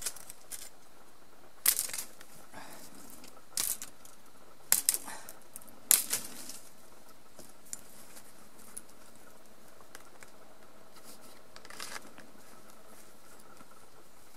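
Dry twigs and a branch crackling and rustling in short spells as they are handled, the sharpest about two, four, five and six seconds in and a softer one near twelve seconds, over faint steady background noise.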